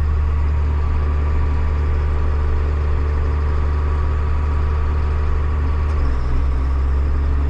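Tractor engine running steadily under load while pulling a loaded grain cart. About six seconds in, its note drops a little as the engine lugs down.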